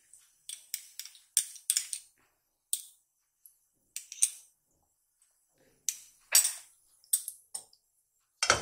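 A spoon scraping and tapping inside a small glass bowl in a run of short, irregular clinks, scraping the last of the cooking oil out into a frying pan. A louder knock comes near the end.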